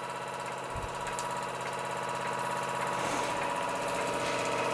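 Mamod ME3 model marine steam engine running steadily at speed, with a fast, even chuffing beat, slowly getting louder.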